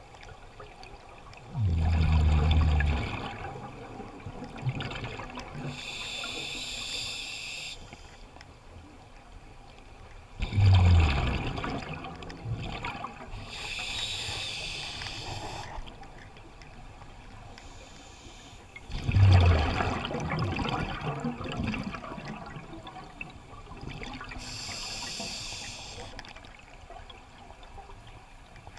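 Scuba diver breathing through a regulator: a hissing inhalation followed a few seconds later by a loud, low bubbling exhalation, repeating about every nine seconds, with four exhalations and three inhalations.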